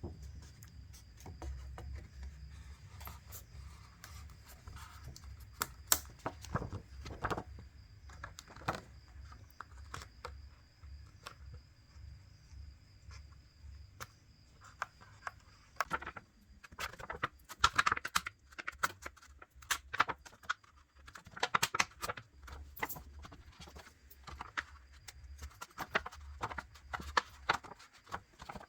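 Small metal repair tools clicking, tapping and scraping against a smartphone's internal parts during disassembly: scattered sharp taps at first, then bursts of rapid scratching and clicking in the second half.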